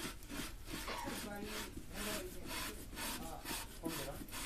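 A hand tool scraping the outer wall of an unfired clay pot in quick, even strokes, a dry rasping rub on the leather-hard clay.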